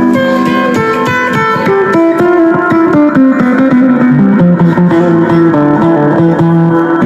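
Electric guitar played through a Spark 2 smart guitar practice amplifier: a quick run of short picked notes that steps down in pitch, then slower, longer held notes in the second half.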